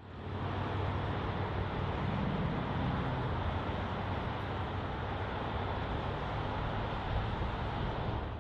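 Road traffic on a city boulevard: a steady hum of passing cars, fading in at the start.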